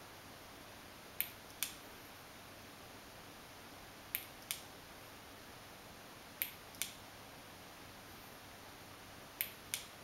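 Sharp clicks in pairs, the two clicks of each pair under half a second apart, a pair every two to three seconds, over a faint steady hiss.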